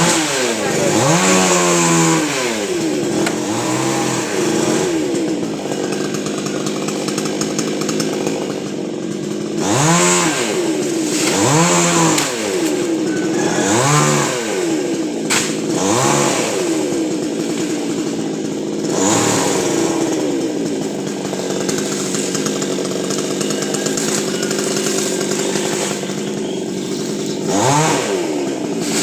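Chainsaw running while cutting a coconut palm, its engine pitch swelling and dropping again and again as it bites into the trunk.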